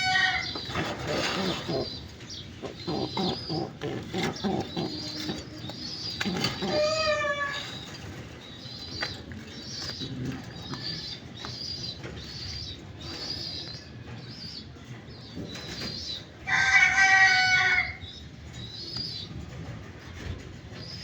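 Domestic pigeons cooing and flapping their wings, with a steady run of short high chirps throughout. A loud drawn-out call stands out about 17 seconds in.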